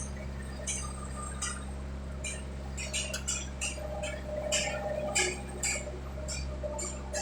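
Steady low engine drone, likely the skid steer's engine running, with a scatter of light clicks and ticks, thickest in the middle seconds.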